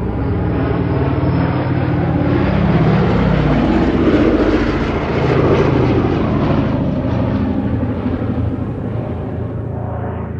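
Boeing B-17 Flying Fortress's four Wright Cyclone radial engines and propellers running as the bomber flies past overhead, growing louder to a peak about halfway through and then fading as it pulls away.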